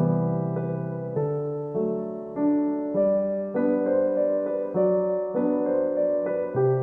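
Background music: a gentle piano-like keyboard melody with steady notes changing about every half second.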